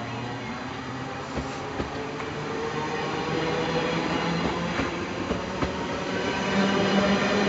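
NS DDZ double-deck electric multiple unit pulling away from the platform and passing close by: its traction motors give a whine that climbs slowly in pitch as it gathers speed, over the rumble of the rolling coaches, with occasional sharp clicks from the wheels on the rails, growing louder toward the end.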